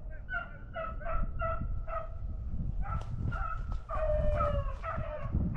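Beagles baying while running a swamp rabbit's trail: short, quickly repeated barks at first, then longer drawn-out bawls from several dogs overlapping in the second half, over a steady low rumble.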